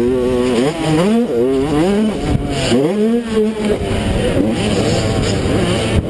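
Small youth motocross bike engine ridden hard, its pitch climbing and dropping several times as the throttle is worked and gears change, heard from a camera on the rider's helmet.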